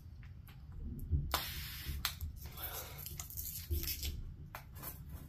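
Quiet tabletop handling sounds while icing is piped onto gingerbread houses: scattered light clicks and taps, with a brief rustle about a second and a half in.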